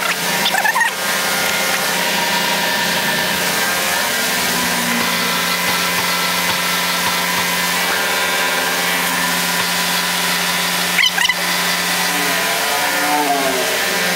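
Car lift's electric hydraulic pump motor running with a steady hum as it raises the car body off the engine. There is a brief clatter about a second in and again about eleven seconds in.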